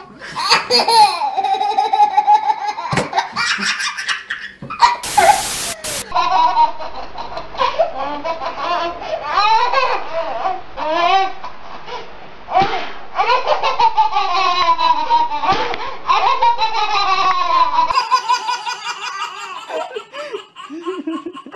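Babies laughing hard: repeated belly laughs and high, rising-and-falling squeals from one baby, then from two babies together. A short, loud burst of noise comes about five seconds in.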